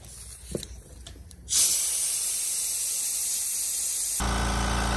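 Kobalt Quiet Tech 4.3-gallon air compressor on its test run after its check valve was cleaned. A loud steady hiss of air starts about a second and a half in, and about four seconds in a steady motor hum takes over with a lighter hiss above it.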